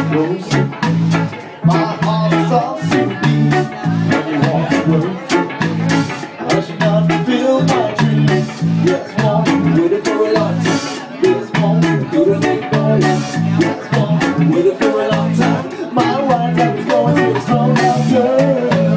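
A live reggae/rocksteady band playing: a pulsing bass line and drum kit keep a steady beat under guitar, with a wavering melody line over the top.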